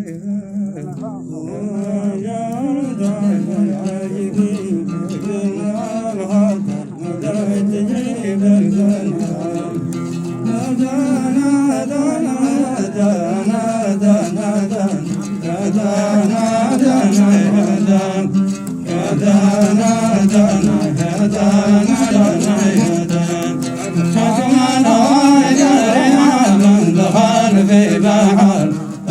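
Male voices singing a Hadhrami dan melody in a group, with wavering melismatic lines over a steady low held note, accompanied by a plucked string instrument.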